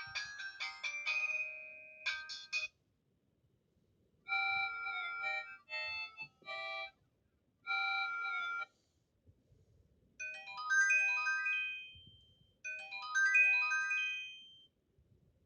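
Mobile phone ringtones from a Megafon TDS 12-1 playing on an Explay SL240 phone: short electronic melodies with pauses between them. One tune ends about three seconds in, brief chiming phrases follow, and near the end come two runs of quick stepping notes.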